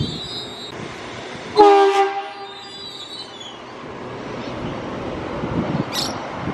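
Train wheels squealing, fading out just under a second in, then a short, loud train horn blast about a second and a half in that dies away over about a second, over the steady rumble of the moving train.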